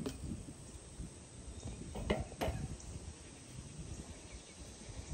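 BMX bike rolling away across concrete, with two sharp metallic knocks about a third of a second apart roughly two seconds in, over a low outdoor rumble.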